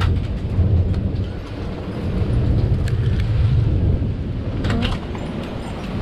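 Heavy rainstorm: steady rain with a deep low rumble that swells and eases, and a few sharp taps of drops striking close by.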